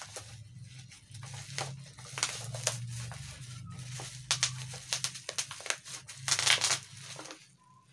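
Black plastic parcel wrapping crinkling and tearing as it is cut with scissors and pulled open by hand, in irregular rustles that are loudest a little after six seconds in.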